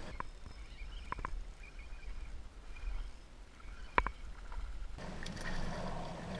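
Hooked spotted sea trout being played beside a kayak: a single sharp splash about four seconds in as the fish breaks the surface, the loudest moment, with a few light clicks about a second in over a low steady rumble.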